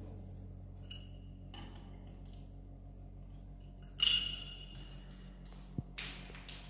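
Light metallic clinks and ticks of a nut being worked off a steel anchor bolt by hand, with a louder ringing metal clink about four seconds in and two sharp clicks near the end.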